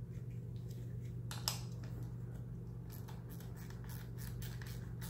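Light metallic clicks of hand tools working on a VW manual transmission's drive flange: one sharp click about a second and a half in, then a quick regular run of clicks, about five a second, near the end. A steady low hum runs underneath.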